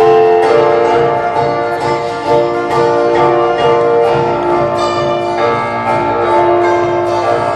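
Live band music with keyboard or piano notes held over a steady beat.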